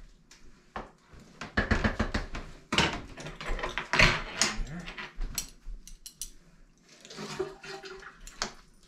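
Metal forks clicking and scraping against a plate as cooked chicken is pulled apart and shredded, in quick irregular strokes, busiest in the first half.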